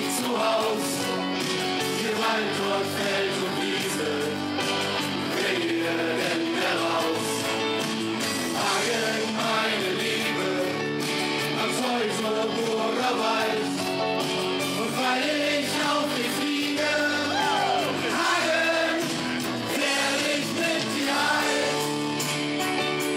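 Live band music with guitars and a singer singing a song in German.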